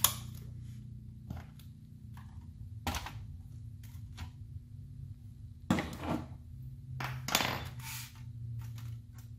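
Plastic parts of a car instrument cluster being handled and taken apart on a workbench: scattered knocks and clacks of the plastic housing and circuit board against the bench and each other, loudest at the very start and in a cluster between about 6 and 8 seconds. A steady low hum runs underneath.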